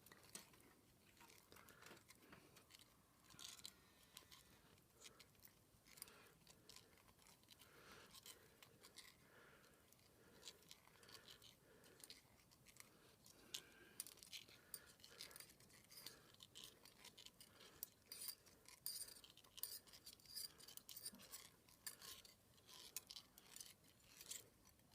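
Faint, irregular clicking and scraping of a flat steel recoil spring being wound by hand into the plastic insert of a Zenoah pull-start.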